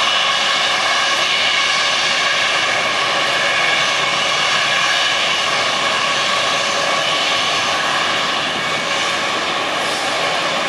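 Airbus A320 jet engines running with a steady, high whine as the airliner taxis slowly along the runway.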